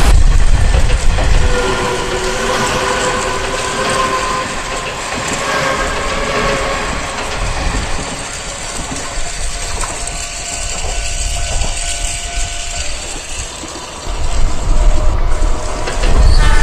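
Dubbed-in train sound effect: a train running with a continuous rumble and wheel clatter on the rails. Faint drawn-out tones appear in the first half, and it grows louder again near the end.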